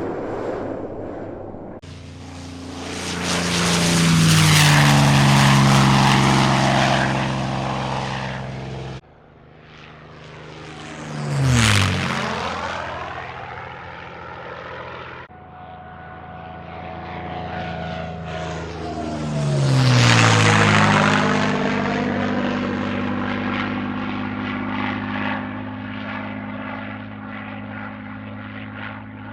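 Piston-engined propeller airplanes flying past in a series of separate recordings, cut abruptly one into the next. Each plane's engine drone drops in pitch as it passes: first a loud pass early on, then a quick low pass about twelve seconds in, and another about twenty seconds in before the drone settles.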